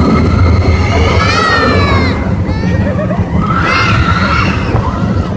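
Riders screaming on a roller coaster over the steady low rumble of the cars running along the track, with two long high-pitched screams, one about a second in and another near the middle.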